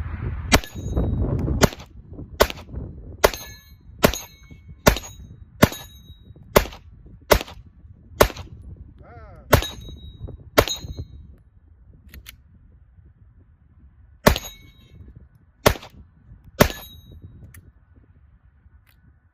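Gunshots from a semi-automatic gun fired at a steady pace: a dozen shots a little under a second apart, a pause of a few seconds, then three more.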